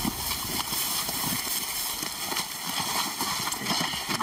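Irregular footsteps, shuffling and knocks of several people carrying a heavy sedated lion and setting it down on the ground.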